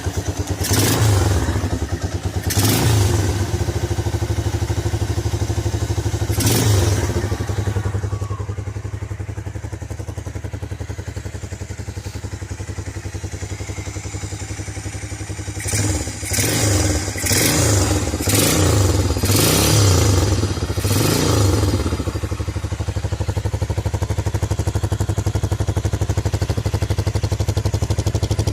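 Carbureted custom motorcycle running through its exhaust at a steady idle. The throttle is blipped a few times early on, then revved in a quick run of short blips in the middle before the engine settles back to idle.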